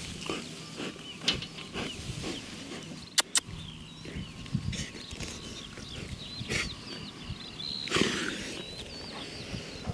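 A Rottweiler rolling on its back on grass, growling and grunting while its chest is rubbed. Two sharp clicks come close together about three seconds in.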